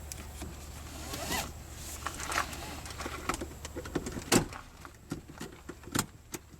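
Restored seatbelt webbing pulled out of its retractor and drawn across, sliding with a zipper-like sound, then sharp clicks about four and six seconds in as the metal tongue goes into the buckle and latches.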